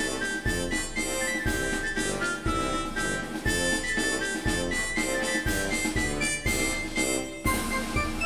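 Background music with a steady beat, about two strokes a second, under a melody of held high notes; the music changes near the end.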